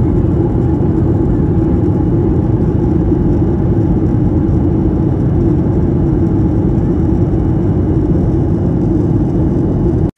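Steady cabin noise of a jet airliner in flight, heard from a window seat: a constant engine drone and rushing air with a steady hum. It cuts off abruptly just before the end.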